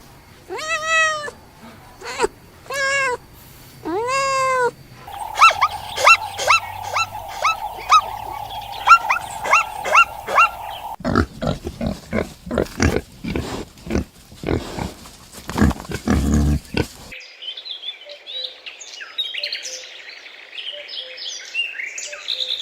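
A run of farm animal calls cut one after another. First come a few long arching calls, then rapid chirping over a steady hiss, then a string of short grunts, and finally faint high twittering.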